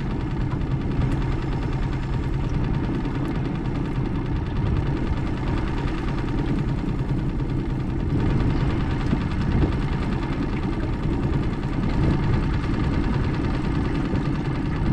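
Small outboard motor running steadily at slow trolling speed.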